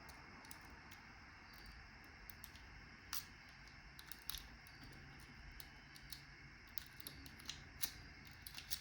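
Faint, irregular small clicks of a lock pick and tension wrench working the pins inside a Master Lock 141 padlock, a few sharper ticks standing out and the clicks coming more often towards the end.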